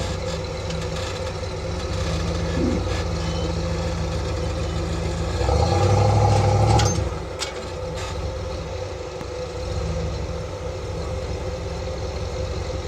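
Vehicle engine running steadily while driving the trail, rising in level for a second or two about halfway through, with a few sharp knocks just after.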